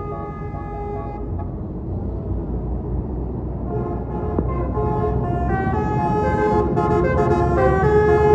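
Basuri telolet horn on a tour bus playing a tune in quick stepped notes over the low rumble of the bus engine, growing louder toward the end as the bus approaches.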